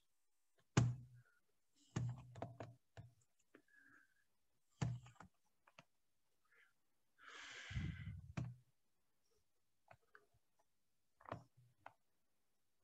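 Faint computer mouse clicks and small knocks at a desk, a few seconds apart, with a longer soft noise about seven seconds in.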